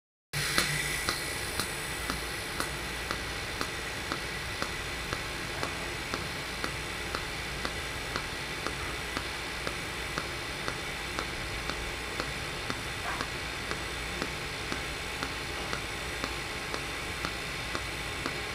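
Mechanized TIG welding arc, oscillating and pulsed at one pulse per second, making a steady hiss with a light regular tick about twice a second.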